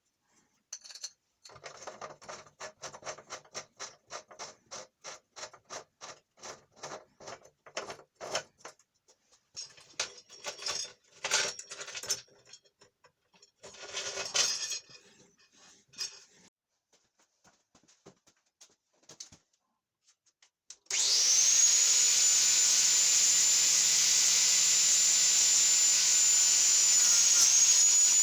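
Rhythmic scraping strokes, about three a second, then a few irregular scrapes and knocks. Later an angle grinder starts up, its whine rising quickly to a high, steady pitch, and runs on loud and level, dipping slightly in pitch near the end.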